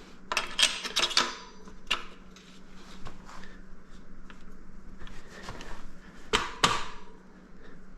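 Hand tools and metal bike parts knocking and clinking: a quick cluster of sharp knocks in the first second or so, scattered lighter ticks, then two loud knocks close together about three-quarters of the way through.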